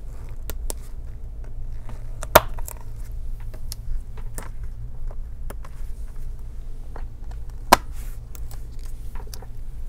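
Small irregular clicks and scrapes of metal tweezers picking at the rubber stoppers and plastic covers on a laptop's bottom case, with two sharper clicks, one about a quarter of the way in and one near three quarters. A steady low hum runs underneath.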